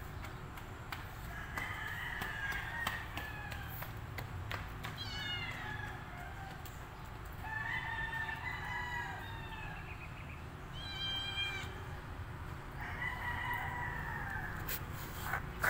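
Calico cat meowing three times, each a drawn-out meow of a second or more that falls slightly in pitch. Two shorter, sharper calls fall between the meows, about five seconds in and about eleven seconds in.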